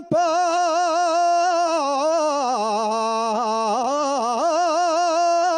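A man singing an Asturian tonada unaccompanied, holding one long ornamented note with a wide vibrato. The pitch slides down through turns in the middle and climbs back up near the end.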